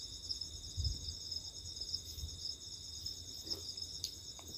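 Steady, shrill chirring of crickets, with a low rumble underneath and a couple of soft bumps.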